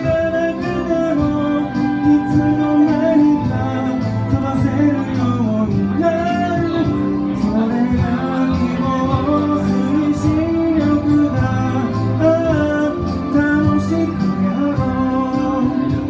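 Live band music: a pop song played by an organ-led ensemble, with a steady bass and a wavering melody line.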